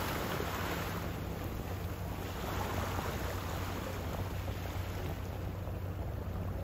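Steady low hum of the cruise ship Celebrity Solstice under way, over a constant hiss.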